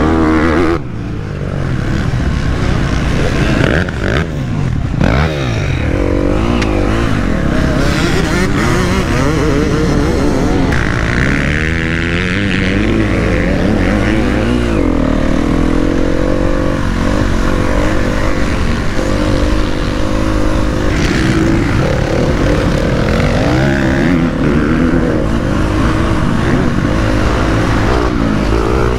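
KTM 250 SX-F four-stroke single-cylinder motocross engine running hard on a dirt track. Its pitch rises and falls over and over as the throttle is opened and shut through the turns and jumps, with a brief drop about a second in.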